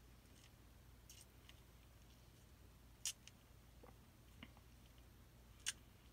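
Near silence over a steady low hum, broken by a few brief sharp clicks, the loudest about three seconds in and near the end.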